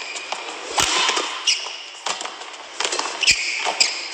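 Badminton rally: sharp racket hits on a shuttlecock, the two strongest about a second in and near the end, with court shoes squeaking on the playing mat and a steady background noise from a large hall.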